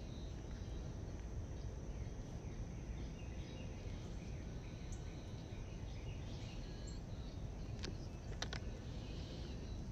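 Outdoor background noise: a steady low rumble with faint bird chirps over it, and a few sharp clicks about eight seconds in.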